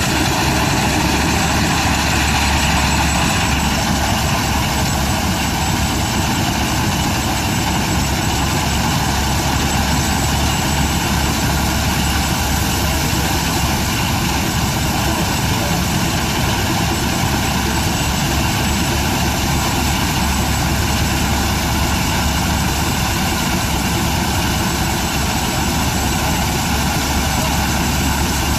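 Threshing machine running steadily under load as grain bundles are fed in, belt-driven by a 1913 Aultman Taylor steam tractor. A constant loud mechanical whir with no breaks.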